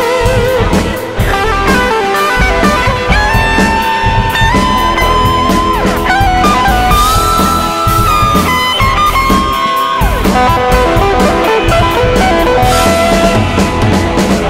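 Electric guitar playing a lead line in a rock song's instrumental break, with long held notes and bends that slide in pitch, over a full band backing.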